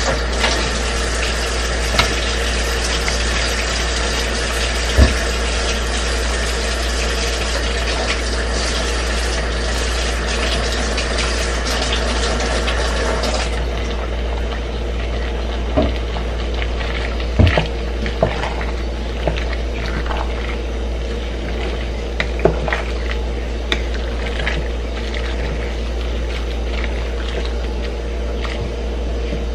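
Large stock pot boiling on a stove: a steady bubbling hiss under a constant low hum, with a few sharp knocks.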